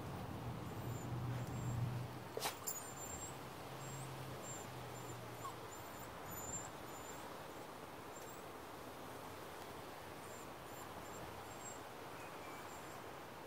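Quiet background hiss with a low hum over the first few seconds, one sharp click about two and a half seconds in, and a series of faint, very high chirps repeating for several seconds.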